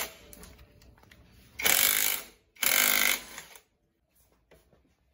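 Cordless impact wrench rattling in two bursts of under a second each, about a second and a half in, after a brief burst at the very start, as it undoes the nut on the clutch of a Yamaha F1ZR two-stroke. Then a few light metal clicks as the clutch parts are handled.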